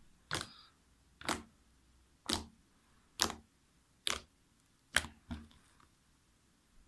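Fluffy shaving-foam slime being pressed and stretched by hand, giving sharp little pops and clicks about once a second.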